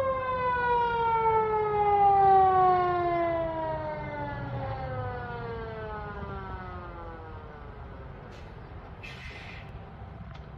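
Fire engine's siren winding down: one long wail that falls slowly in pitch and fades over about seven seconds, over a steady low rumble. A short hiss comes about nine seconds in.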